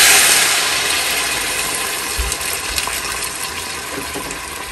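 Water poured into a hot, oiled frying pan of string beans, hissing and sizzling loudly as it hits the hot pan and boils off, the hiss fading steadily as the pan cools.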